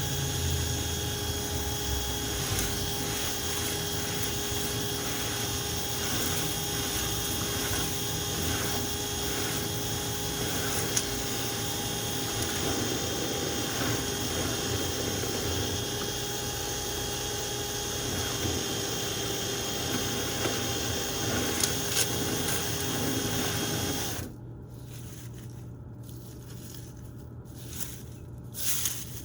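Power drill spinning a rotary brush through a dryer vent duct: a steady motor whine with scraping, cutting off suddenly about 24 seconds in. A lower hum carries on afterwards, with a few soft knocks near the end.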